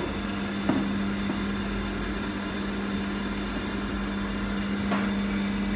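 Steady low mechanical hum of commercial kitchen equipment at a deep fryer, with two faint metal clicks, one about a second in and one near the end.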